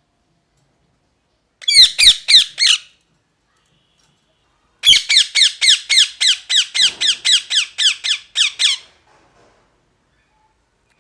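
Ringneck parakeet calling in rapid repeated screeches: a short burst of four about two seconds in, then a longer run of about fifteen at roughly four a second, each call a high note falling in pitch.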